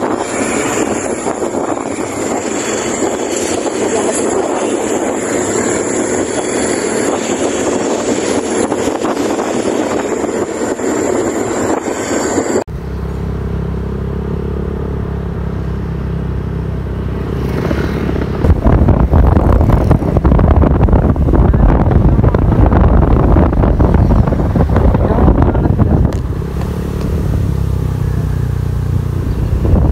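A road vehicle, possibly a motorcycle, running steadily during a ride. About 13 s in the sound cuts suddenly to a lower, heavier rumble, which grows louder from about 18 s.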